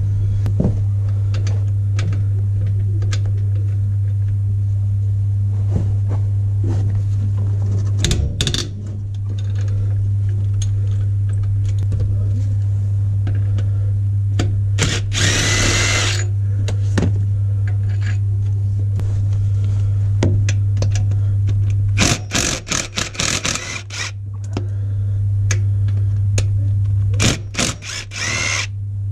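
Cordless power tool undoing the tight bolts of a Ford Fiesta ST's rear gearbox mount, run in short bursts: one about a second long midway, then a quick string of bursts later on and again near the end. A steady low hum runs underneath.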